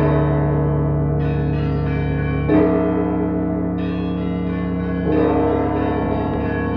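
Russian Orthodox church bells ringing. A deep bell strikes three times, about two and a half seconds apart, and smaller, higher bells chime in between its strokes, everything ringing on and overlapping.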